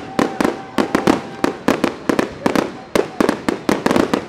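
Fireworks going off in a rapid, irregular string of sharp cracks and bangs, several a second.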